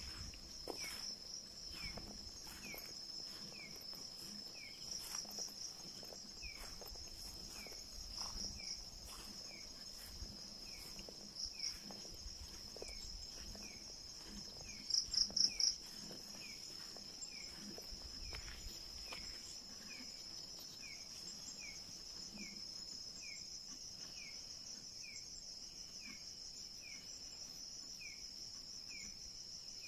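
Night insect chorus: a steady high-pitched cricket trill, swelling into a few louder pulsed bursts, the loudest about fifteen seconds in. A second caller gives a short falling chirp a little more than once a second throughout. Soft low thuds of footsteps on the forest floor come and go over the first twenty seconds or so.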